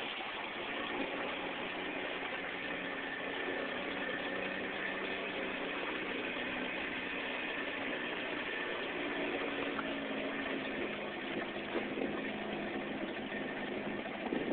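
A small boat's engine running steadily while the boat is under way.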